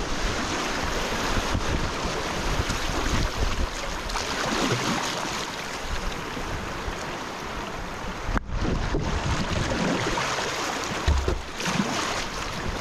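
Shallow whitewater rapids rushing steadily around a kayak, with wind buffeting the microphone. The sound drops out for an instant about eight seconds in.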